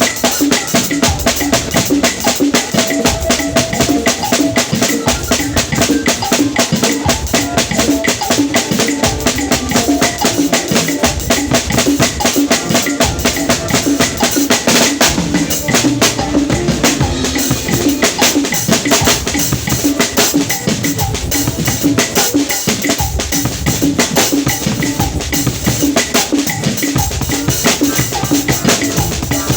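Drum kit played continuously: fast, steady strokes on the snare and cymbals over repeated bass drum beats.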